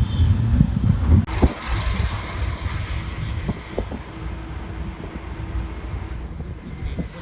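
Moving bus heard from inside the cabin: a low engine and road rumble with rattles and a few knocks. The rumble drops suddenly about a second in, then runs on more quietly.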